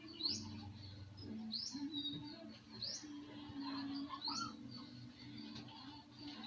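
A small bird chirping over and over, one short rising chirp about every one and a half seconds, over a low steady hum.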